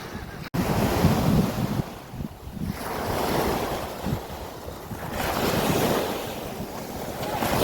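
Sea of Azov waves washing onto the shore in swells every couple of seconds, with wind buffeting the microphone. There is a sudden break about half a second in.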